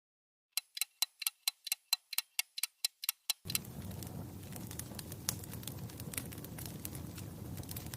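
A quick run of sharp, slightly ringing ticks, about five a second, for about three seconds. Then, about three and a half seconds in, a fire starts crackling: a low steady rumble with scattered snaps and pops.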